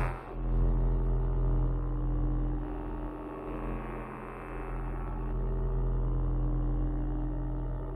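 Sustained electronic drone: a low hum with many steady ringing tones held together, swelling and fading slowly.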